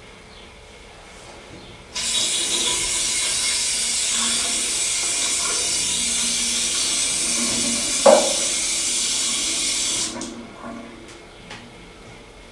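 Shower spray hissing steadily for about eight seconds, starting and stopping abruptly. A single sharp knock comes near the end of it.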